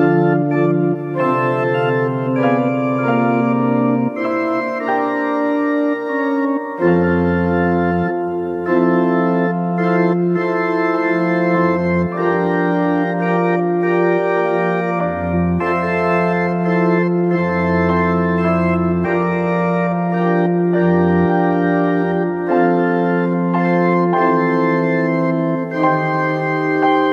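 Organ playing slow, sustained chords, with deep bass pedal notes coming in about seven seconds in and returning every few seconds.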